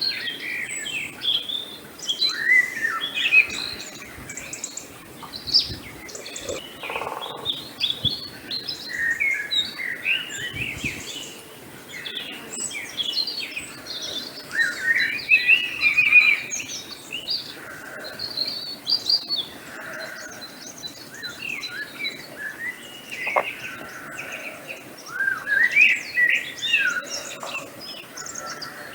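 A chorus of songbirds chirping and singing, many short overlapping chirps and quick whistled glides from several birds, over a faint outdoor background hiss.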